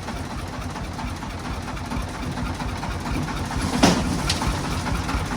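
Diesel engine running at idle with a steady low pulse, a sharp metallic clank about four seconds in and a lighter one half a second later.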